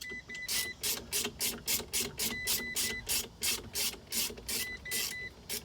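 Ratchet wrench being worked back and forth on a nut, a steady run of short rasping clicks about four times a second.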